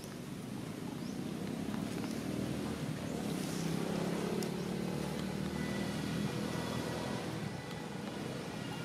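Low engine drone of a passing motor vehicle, growing louder over the first few seconds and easing off near the end.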